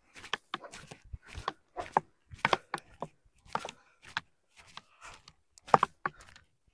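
Footsteps on dirt and grass: a string of soft, irregular steps and light scuffs.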